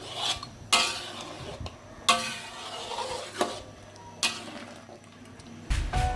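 A utensil stirring curry in a cooking pot: a few sharp scrapes and knocks against the pot a second or so apart, with a faint sizzle between them. Music comes in near the end.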